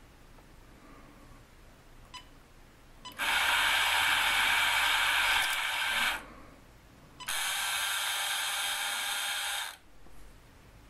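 Small electric motor and gearing of a 1962 toy excavator running twice, for about three seconds and then about two and a half, working the grab bucket; a short click comes just before each run.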